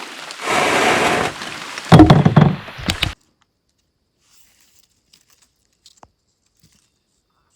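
A brief rush of noise, then a cluster of loud, hollow thunks and knocks about two to three seconds in. The sound then cuts off abruptly to dead silence, with only a couple of faint ticks.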